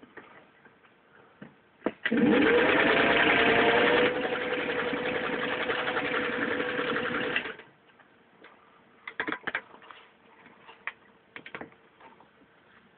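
Singer 15-91 sewing machine, driven by its gear-driven potted motor, stitching through six layers of denim: it winds up to speed about two seconds in, runs steadily for about five seconds, then stops. A few light clicks follow near the end.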